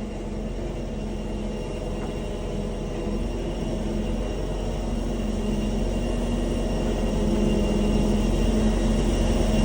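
Jet airliner engines running, a steady hum and whine that grows gradually louder.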